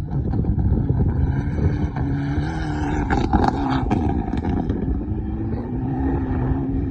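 Rally car engine running steadily at a held, fairly high speed, its pitch wavering slightly, with a few sharp cracks about three to four and a half seconds in.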